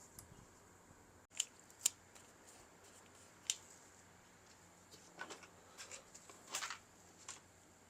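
Sharp small clicks and light handling rattles of plastic and metal laptop parts being worked by hand: two clicks about half a second apart, another a little later, then a flurry of small clicks and rustling in the second half.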